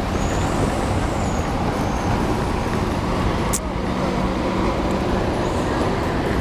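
Steady street traffic: cars and buses running past, with engine and tyre noise. A thin high squeal sounds in the first second or so, and there is one sharp click a little past halfway.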